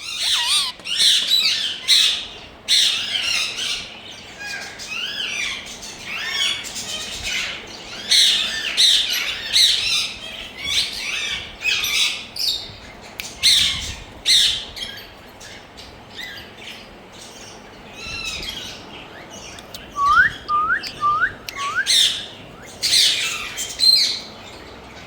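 Ringneck parrots squawking, a string of harsh, repeated screeching calls. About twenty seconds in they give four quick rising whistles.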